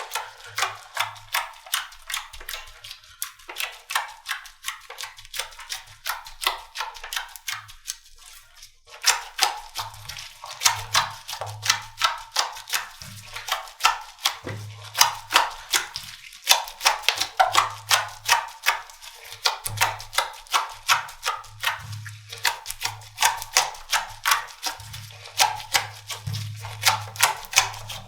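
Slime being squeezed and pressed by hand, giving a quick run of crisp clicking and popping sounds, about three a second, with a short break about nine seconds in.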